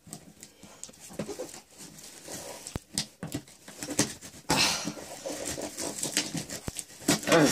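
Orange hooked safety box cutter slitting the packing tape on a cardboard shipping box: scratching, clicking and rustling of blade and cardboard, with a longer tearing rasp about four and a half seconds in.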